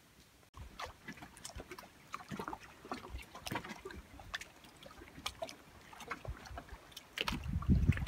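Small waves lapping and splashing at the water's edge, starting about half a second in as many small, irregular splashes. Near the end a louder low rumble of wind on the microphone comes in.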